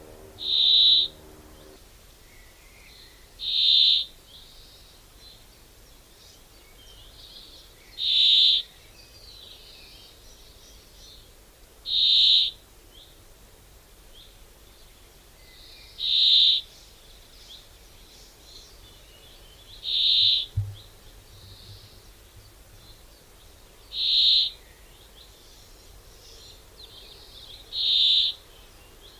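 A bird repeats one short, high call about every four seconds, eight times in all, over the faint twittering of other birds.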